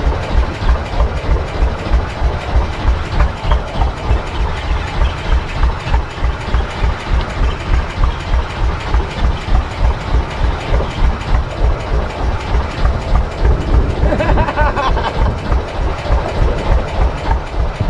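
Fishing boat's engine running with a steady, low pulsing beat.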